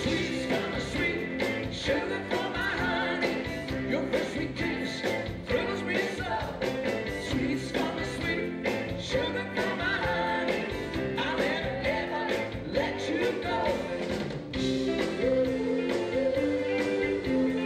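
Live rock and roll band playing, with a male singer singing through a handheld microphone over the band.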